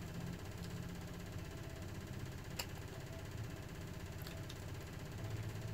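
Faint eating noises, a few soft clicks and smacks as fried fish is chewed and picked apart by hand, over a steady low hum.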